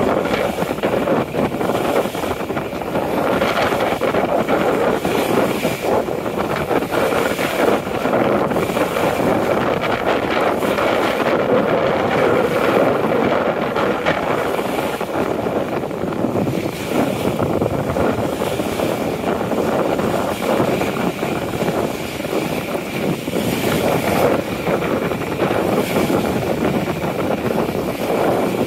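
Steady wind buffeting the microphone, with choppy lake water lapping against the shore.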